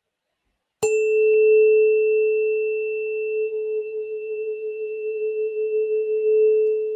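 A 432 Hz tuning fork struck once with a mallet on the corner of its tine about a second in, then ringing with one steady pure tone and a faint high overtone, its loudness wavering slightly as it sustains.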